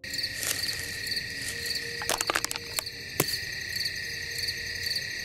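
Crickets chirping: a steady high trill with a pulsing chirp above it. A quick cluster of sharp clicks comes about two seconds in, and a single louder snap about three seconds in.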